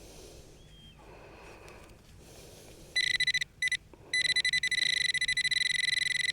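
A metal detector's buzzing target tone cuts in about halfway through, drops out twice briefly, then holds steady: it is sounding on a small piece of metal in the dug soil.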